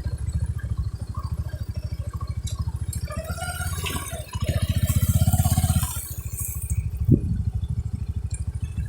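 Bajaj Boxer motorcycle's single-cylinder four-stroke engine running at low revs with an even, quick pulse. About four and a half seconds in it rises briefly under more throttle for a second and a half, then drops back.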